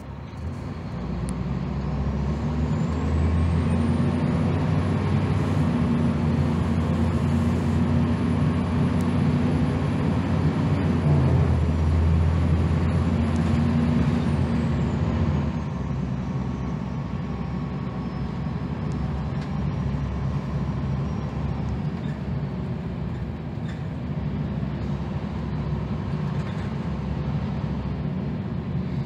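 2001 Gillig Phantom transit bus with a Cummins ISM diesel and Allison B400R automatic transmission, heard on board pulling away under power: the engine runs hard with a high whine that rises in pitch over the first few seconds and then holds. A little past halfway the engine eases off and the whine falls in pitch as the bus rolls on.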